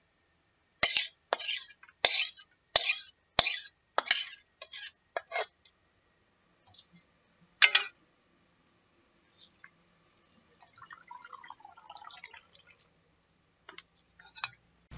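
Cookware clinks: an aluminium wok knocked against a plastic colander to shake loose the last boiled noodles, about nine sharp hits roughly twice a second, then one more hit a couple of seconds later.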